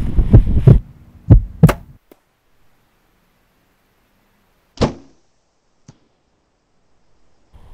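Wind buffeting the microphone, with two knocks, cuts off about two seconds in. After a near-silent stretch comes one sharp thunk of a compound-bow arrow being shot into a rabbit, followed by a faint click about a second later.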